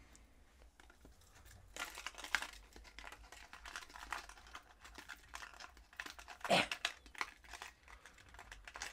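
Packaging crinkling and rustling in short, irregular bursts as a fishing lure is worked back into it, with a louder crackle about six and a half seconds in.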